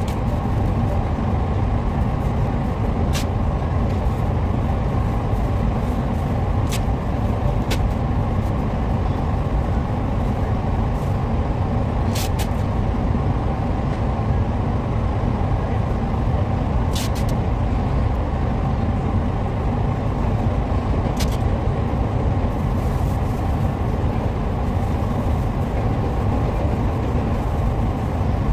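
Paint spray booth air handling running, a steady low rushing noise, with a few short clicks scattered over it.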